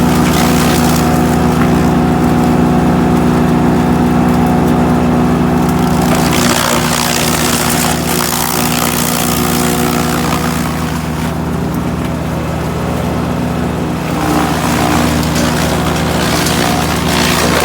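GreenMech Arborist 150 wood chipper running steadily at working speed, its engine tone constant. Two stretches of rushing noise rise over it, about six seconds in and again near the end.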